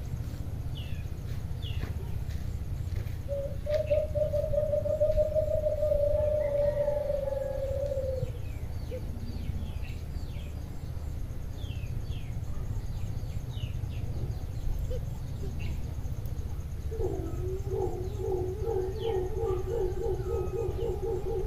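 Caged alimokon (white-eared brown doves) kept as decoy birds, calling: one long, steady hooting note a few seconds in, then near the end a fast run of pulsed hoots. Small birds chirp throughout over a low background rumble.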